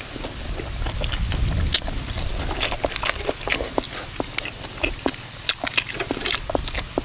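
Close-miked chewing and mouth smacks of someone eating a cucumber salad with boiled eggs and fresh herbs: a stream of short, sharp clicks and wet smacks.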